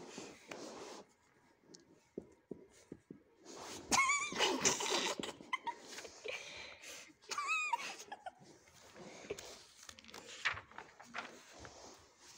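Pages of a paperback textbook being handled and turned, with a rustle and slide of paper. About four seconds in and again about seven and a half seconds in come short, high, wavering cries.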